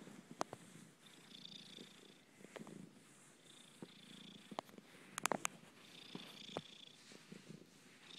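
Domestic cat purring close to the microphone, a low pulsing purr that goes on without a break while its belly is touched. A few sharp clicks cut through it, the loudest about five seconds in.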